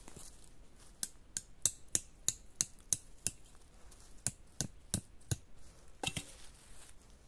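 Sharp knocks, about three a second for some four seconds, then a quick pair near the end: a tarp's guy-line stake being tapped into the ground.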